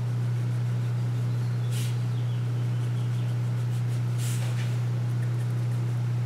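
A steady low hum, with a felt-tip marker scratching briefly across paper twice, about two seconds in and again just after four seconds, as dashed lines are drawn.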